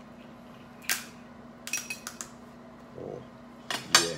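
Crab legs being cracked open with a metal shell cracker: a handful of sharp cracks and clicks, the loudest near the end.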